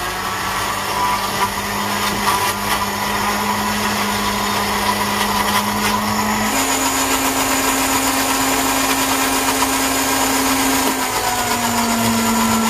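Countertop blender with a glass jar running steadily, grinding fresh mint, green chillies, garlic and cumin into a chutney. Its motor hum steps up in pitch about halfway through and drops back a little near the end.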